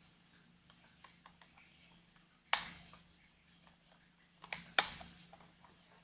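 Light clicks and sharp plastic clacks as the master and remote units of an RJ45 LAN cable tester are handled, with one loud clack about two and a half seconds in and two close together just before five seconds.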